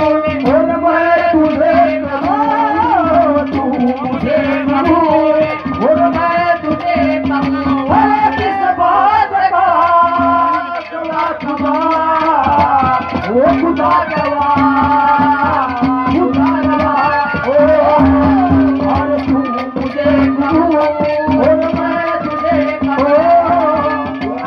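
Haryanvi ragni folk music: a gliding melody line over a held drone note and fast, dense hand-drum strokes.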